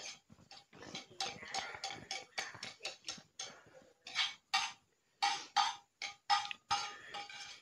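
A metal spoon scraping and clinking in a plastic bowl as apple snails are stirred and scooped through chili dipping sauce. It is a run of short scrapes and clicks, the sharpest coming about two a second in the second half.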